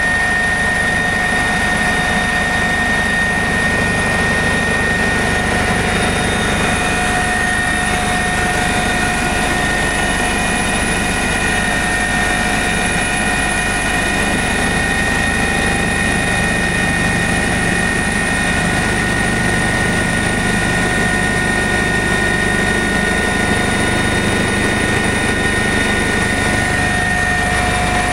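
Eurocopter EC145 twin-turbine helicopter in flight: steady engine whine and rotor noise, unchanging throughout.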